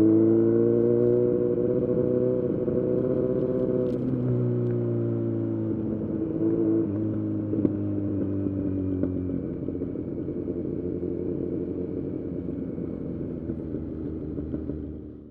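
Kawasaki Z900's inline-four engine through a full-system exhaust, running high at first. From about four seconds in the revs ease down steadily as the throttle is rolled off, and the engine then runs at lower, steadier revs before the sound cuts off suddenly.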